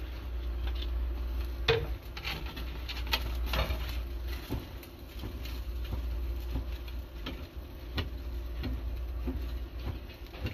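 Irregular knocks, clicks and rubbing as things are handled at a wood-fired clay chiminea grill, over a steady low rumble.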